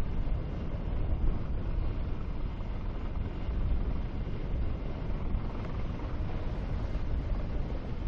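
The Ultra Heavy-lift Amphibious Connector (UHAC) half-scale prototype moving on its air-cell tracks over pavement: a steady, low running noise of engines and tracks with no distinct knocks or changes.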